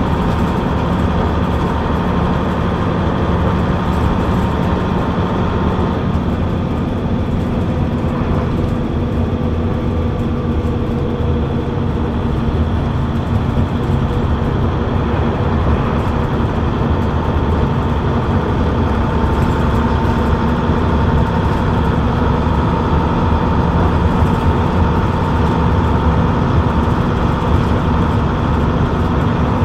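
Leyland Atlantean double-decker bus's rear-mounted Leyland 680 diesel engine, heard from the back seat just in front of it, running steadily as the bus drives along the road.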